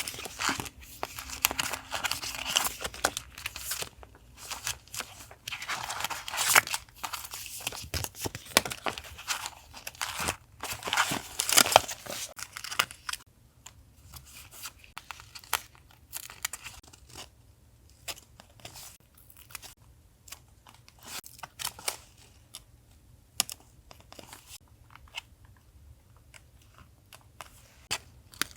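Paper being handled for collage journaling: tearing and crinkling strokes for about the first dozen seconds, then quieter scattered taps and rustles.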